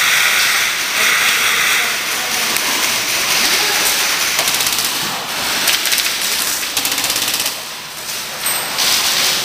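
Airsoft electric rifles firing full-auto bursts, a rapid ticking rattle of about fourteen shots a second. The longest burst comes about seven seconds in, over a constant hiss.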